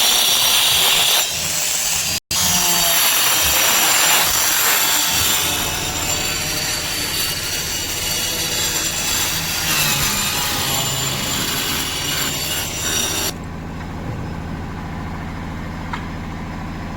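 Loud, harsh grinding machine noise over a steady engine hum. About thirteen seconds in, the grinding cuts off suddenly, leaving the engine running steadily at idle.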